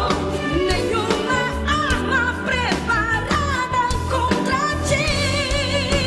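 Recorded Christian worship song: a singer's melody with vibrato over a band with bass and a steady drum beat.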